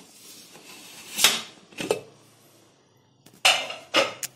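Pressure cooker lid being worked loose and lifted off the pot: a few sharp metal clanks and scrapes, the loudest about a second in and two more close together near the end.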